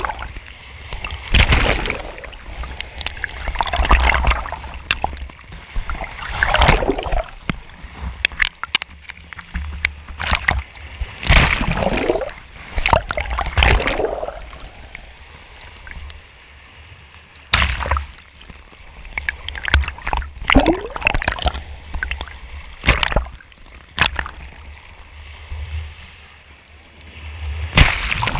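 Small sea waves breaking and washing over a camera at the waterline, splashing in irregular surges every one to three seconds.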